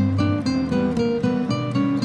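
Soundtrack music led by an acoustic guitar, plucking notes and strumming chords at a steady pace.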